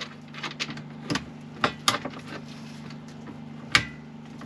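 Sharp clicks and taps of a screwdriver and tools at the wiring terminals of a Victron MultiPlus inverter/charger, about four strong clicks and several lighter ones, irregularly spaced, over a steady low hum.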